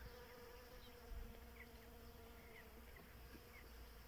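Honey bees buzzing faintly around fruit-tree blossom, a steady low hum.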